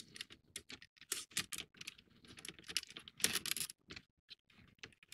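Stiff cardboard puzzle pieces being handled and pressed into place on a paper model ship: irregular light clicks and rustles, busiest a little past three seconds in.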